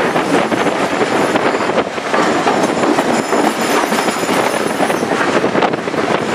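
Wheels of a steam-hauled heritage train's carriages running over curving track and pointwork, heard from an open carriage window: a steady rumble and clatter of wheels on rail, with a faint high wheel squeal in the middle.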